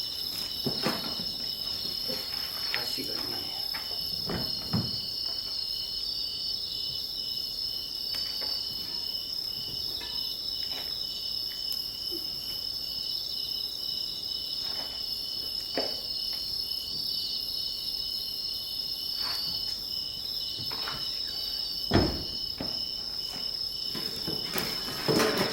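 A steady, high insect chorus, chirping in a pulsing pattern, with scattered faint clicks and one sharp thump about 22 seconds in.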